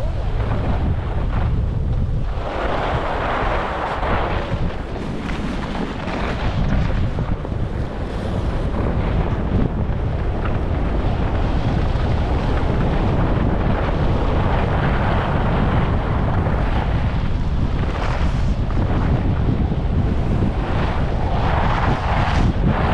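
Wind buffeting a GoPro's microphone while skiing downhill at speed, with the hiss of skis scraping over the packed piste that swells louder a couple of times.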